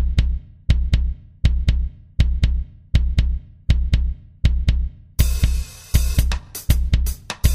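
Background music: a drum-only passage of bass drum and sharp snare or cymbal strikes in a steady beat, about one every three-quarters of a second, after a piano melody drops out; a fuller cymbal-like wash joins about five seconds in.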